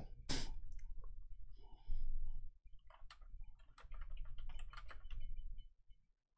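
Quiet, irregular clicks and taps of a computer mouse and keyboard being worked, scattered through the few seconds and busiest in the middle.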